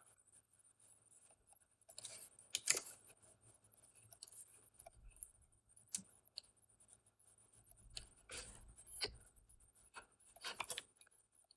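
Faint, scattered clicks of a computer keyboard and mouse, a handful of separate taps spread over several seconds with a short cluster near the end.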